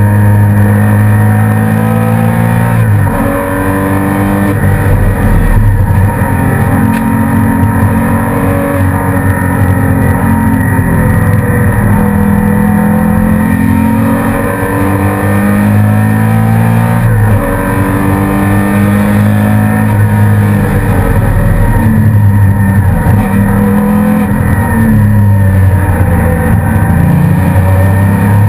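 Porsche Cayman S race car's flat-six engine heard from inside the cabin at race pace, loud and hard-driven. Its pitch climbs under acceleration and drops off repeatedly through the laps as it shifts gears and slows for corners.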